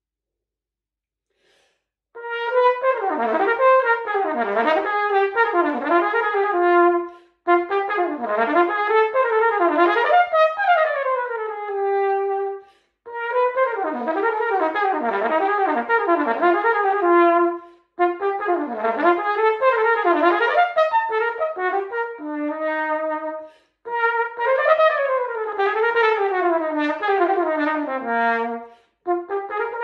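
Unaccompanied cornet playing fast technical passages of rising and falling runs and arpeggios, beginning about two seconds in. The notes come in phrases of about five seconds, broken by short gaps, some phrases ending on a held note.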